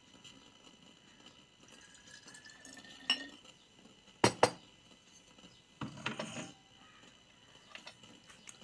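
A metal spoon clinking against a drinking glass as powdered drink mix is spooned into a glass of water: a few sharp clinks, two close together about four seconds in, then a short scraping rattle, and a few light ticks near the end.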